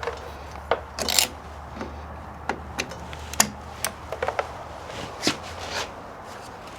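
Scattered clicks, taps and rustles of tools and parts being handled, over a steady low hum.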